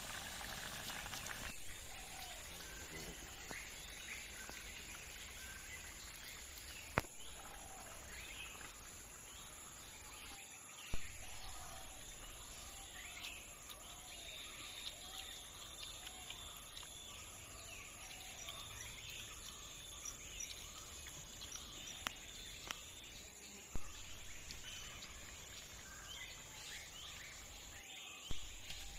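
Faint outdoor ambience of birds chirping and calling over a steady high insect whine, broken by a few sharp clicks. It opens with a brief hiss of curry boiling in an iron wok.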